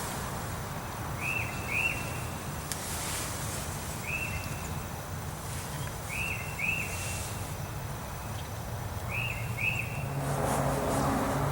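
A bird repeating short rising chirps, singly or in pairs, every two to three seconds, over a steady low hum. Near the end a low engine drone grows louder.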